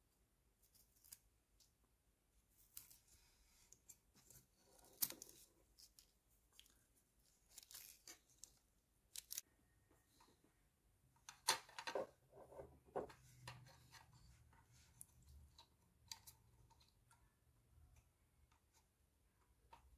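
Quiet, scattered snips and clicks of small hand tools working on plastic model-kit parts, the sharpest about five seconds in and a cluster of them around twelve seconds.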